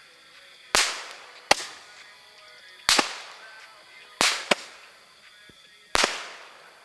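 Firework bangs: about six sharp reports at uneven gaps, two of them close together near the middle, each trailing off in an echo.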